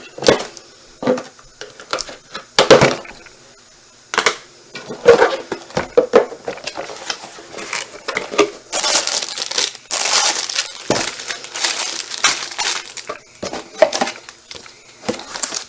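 Cardboard box and plastic packaging being cut and opened by hand: irregular crinkling, tearing and knocks, with a longer stretch of dense rustling about nine to thirteen seconds in.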